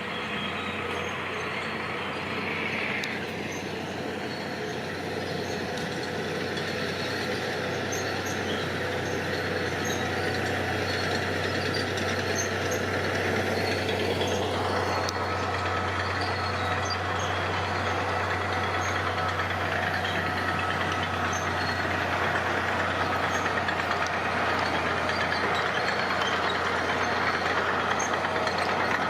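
Engine of heavy earth-moving machinery running steadily with a constant low hum, slowly getting louder.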